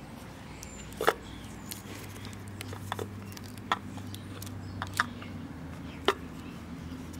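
A handful of sharp metallic clicks and clinks, the loudest about a second in, as the rotor of a vintage rotary fridge compressor is set back into its stator inside the cut-open steel housing. A steady low hum runs underneath.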